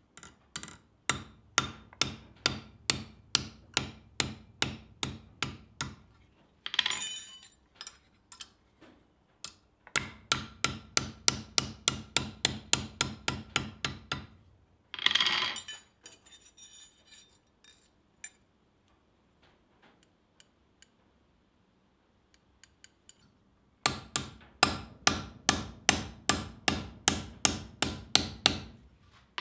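Small hammer striking a hardened steel scissor blade on the anvil in quick, ringing metal blows, about three a second, in three runs of several seconds each. A brief scraping clatter comes twice between the runs.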